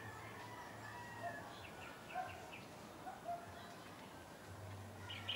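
Chickens calling faintly: a drawn-out call near the start, then short clucks about once a second, over a steady low hum.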